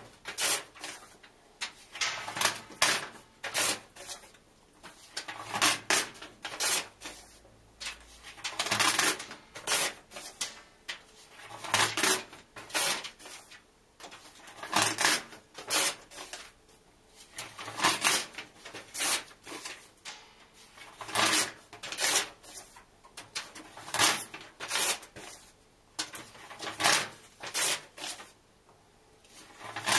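Paper book pages being ripped out and torn in half, one quick rip after another in clusters of two or three, a new cluster about every two to three seconds.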